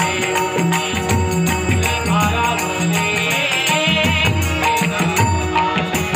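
Live Marathi bhajan: a male singer's voice over steady strokes of a pakhawaj barrel drum and tabla, with bright metallic percussion keeping time.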